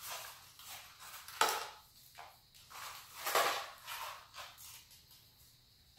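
A few brief rustles and handling noises, the loudest about a second and a half and three and a half seconds in, as small electrical parts are picked through by hand, with quieter shuffling between.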